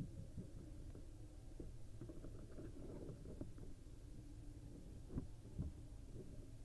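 Faint scratchy rustles and two soft knocks from a barn owl moving in its nest box, over a steady low hum.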